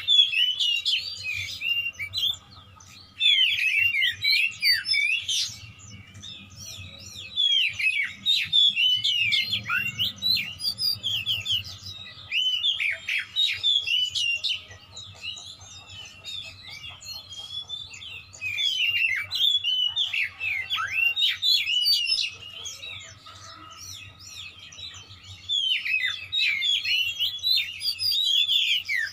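Oriental magpie-robin (kacer) singing in rapid bursts of fast, sweeping whistled notes, several seconds each, with short pauses between them.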